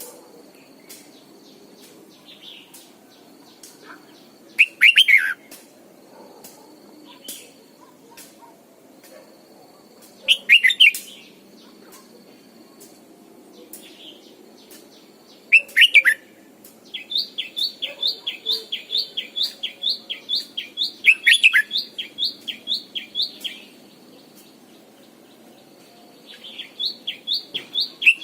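Red-whiskered bulbul singing short, loud phrases of falling whistled notes about every five seconds. A fast run of repeated chirps, about four a second, comes partway through and again near the end.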